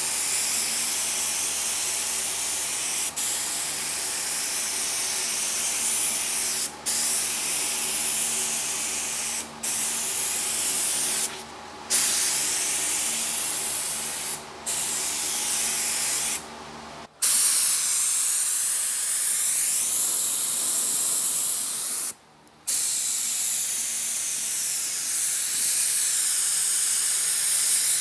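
Gravity-feed paint spray gun spraying epoxy primer, a steady loud hiss of air and paint mist. The hiss cuts out briefly about seven times as the trigger is let go between passes.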